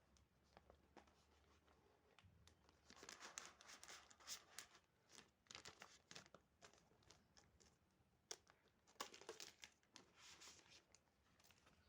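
Packaging being handled during unboxing: crinkling and tearing in irregular bursts with small clicks, busiest about three seconds in and again about nine seconds in.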